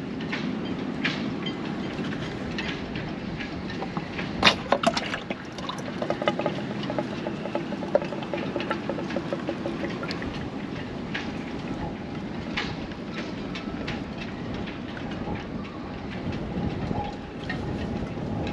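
A few sharp metallic clicks and clunks of a wrench working the fixing bolts on an SD20 sail drive, loudest about four and a half seconds in, over a steady rushing background noise.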